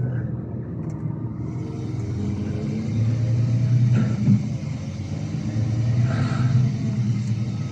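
Scania coach engine heard from inside an Irizar i6s cabin, running under load with a low steady drone that swells about three seconds in and again near the end.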